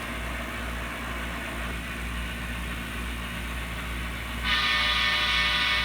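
Sound-equipped model CSX diesel locomotive running with a steady engine sound. About four and a half seconds in, a loud, held horn blast starts.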